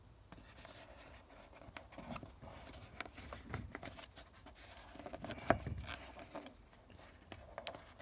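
Hands working rubber grommets out of a plastic air box: faint rubbing, scraping and small clicks of rubber and plastic, with one sharper knock about five and a half seconds in.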